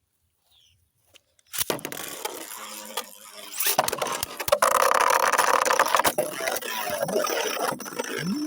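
Two 3D-printed Beyblade tops launched into a stadium about a second and a half in, then spinning, clashing and scraping against each other and the stadium, with many sharp collision clicks. The clatter is loudest in the middle and stops suddenly near the end.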